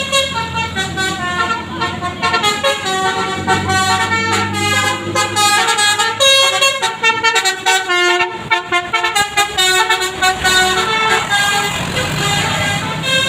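Basuri 'telolet' multi-tone electric bus horn playing a melody of held notes that step up and down in pitch, over a bus engine's low running hum.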